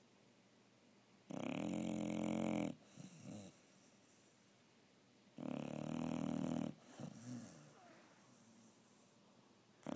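Pit bull dog snoring in her sleep: two loud snores about four seconds apart, each followed by a softer breath out, with a third snore starting at the very end.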